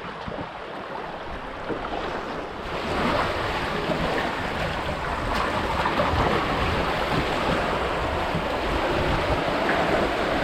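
Steady rush of wind and sea water around a sailing catamaran under way, with wind on the microphone; the noise gets louder about two and a half seconds in and stays that way.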